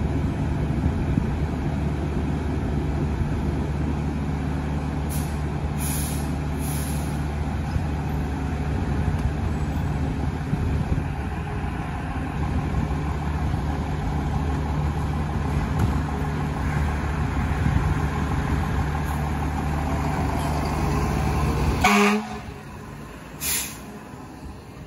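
Fire truck engine running steadily with a low drone, with a few short hisses about five to seven seconds in. The engine noise cuts off suddenly near the end, leaving a quieter background with one more short hiss.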